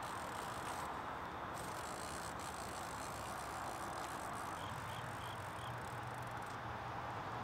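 Fishing reel being cranked steadily as the line is wound in, with four faint short chirps about five seconds in.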